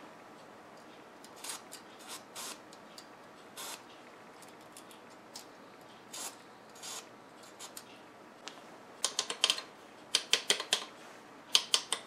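Scattered light clicks and scrapes of small metal and plastic parts being handled on the workbench, then quick runs of sharp clicks from about nine seconds in.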